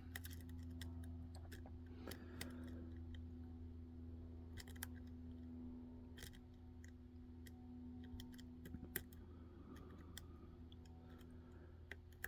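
Faint, irregular metallic clicks and scrapes of a lock pick and tension wrench working the pins of a Mul-T-Lock Interactive pin-tumbler lock.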